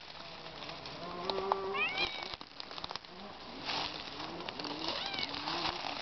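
Domestic cat meowing: one drawn-out meow about a second in, rising at its end. Softer rustling of dry leaves follows.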